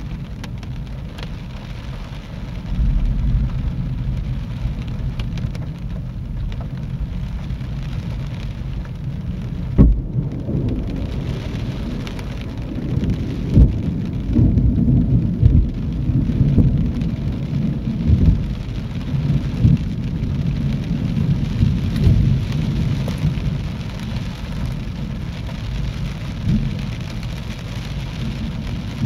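Thunderstorm: steady rain with thunder rumbling. A sharp crack comes about ten seconds in, followed by a long, uneven rolling rumble through the middle.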